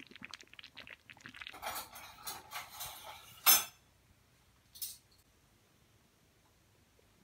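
Metal spoon stirring and scraping through thick sweet potato and pumpkin chè in a pot: a run of soft clicks and scrapes, then one sharp clank about three and a half seconds in.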